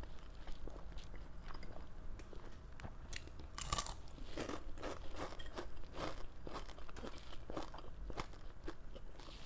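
Close, wet chewing and crunching of crispy fried galunggong (round scad), with a string of sharp crunchy bites, the loudest a little under four seconds in.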